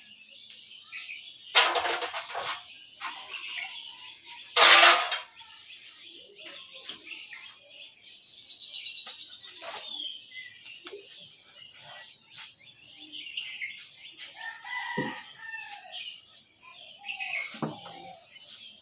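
Hands rubbing briskly over the scalp and hair in a head massage, with two loud rustling bursts a few seconds apart and softer rubbing after. Birds chirp and call in the background.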